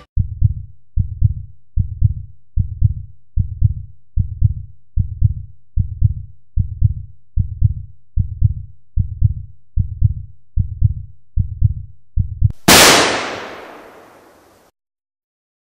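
Heartbeat sound effect: deep double thuds at a steady pace of about 75 a minute, then a sudden loud blast that dies away over about two seconds.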